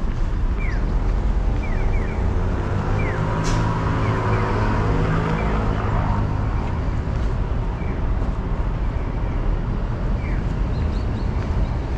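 Street traffic noise, with a vehicle passing by in the middle whose engine hum swells and fades. Short, high, falling chirps come every second or few.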